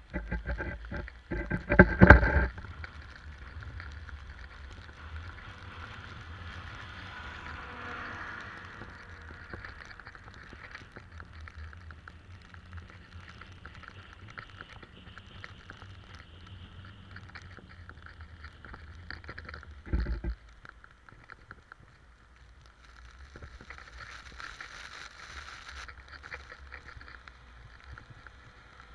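Skiing down a groomed piste: edges scraping over packed snow, with wind rumbling on the microphone of a body-mounted camera. Heavy knocks and rumble in the first two seconds, and one loud thump about twenty seconds in.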